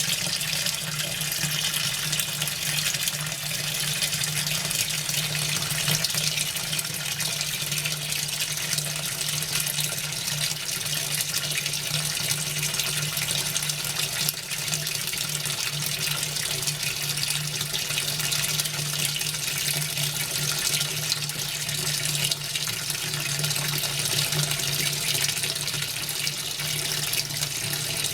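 Hitachi NW-42EF washing machine with water running steadily into its drum, a continuous rush over a steady low hum: the machine filling for the wash.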